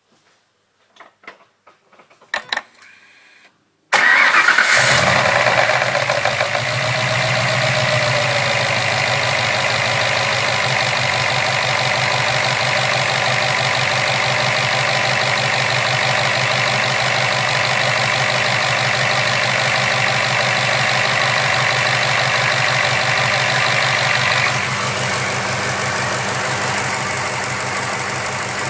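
Ford BA Falcon XR8 V8 engine cranking and catching about four seconds in, then flaring and settling into a steady idle, heard close up from on top of the intake manifold. The engine has a knock noise. A few small clicks come before the start.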